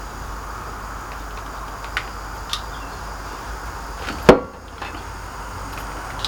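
Metal parts of an old post vise being handled: a few light clicks, then one loud knock about four seconds in, over a steady background hiss.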